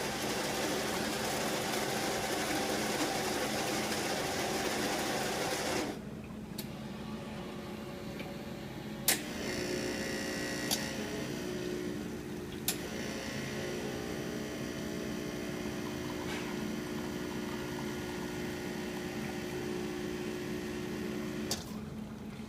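Quick Mill Monza Deluxe espresso machine making an espresso. A grinding noise runs for about the first six seconds, then after a few clicks the pump hums steadily for about twelve seconds as the shot is pulled, stopping shortly before the end.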